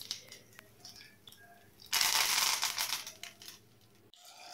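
Tempering spices (dried red chillies, curry leaves, mustard seeds, cumin and urad dal) frying in hot oil in a pan: light crackling and popping, then a loud sizzle about two seconds in that lasts about a second and dies down. The sound cuts off abruptly near the end.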